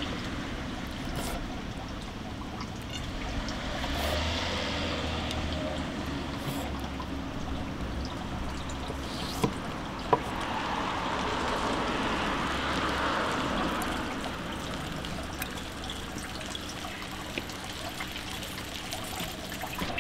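Street traffic passing in slow swells of noise, twice growing louder and fading. About ten seconds in come two sharp knocks half a second apart: the knife against the cutting board while eel is filleted.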